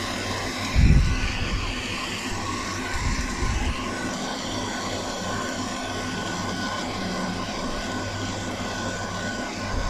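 Spatula stirring thick sauce in a frying pan on a gas hob, with low knocks of the pan about a second in and again around three seconds in, over a steady background rush.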